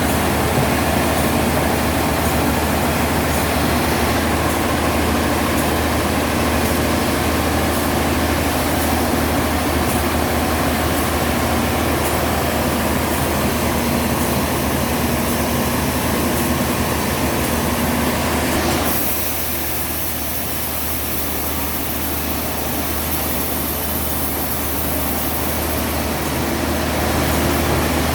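Heavy sawmill machinery running steadily with a low hum and a loud spread of noise. About two-thirds of the way through the sound changes: the middle drops back and a high hiss comes in.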